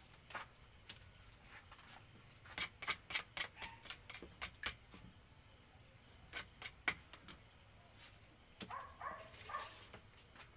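A spoon clicking and tapping against a bowl in clusters while beaten egg is stirred, over the steady high chirring of crickets.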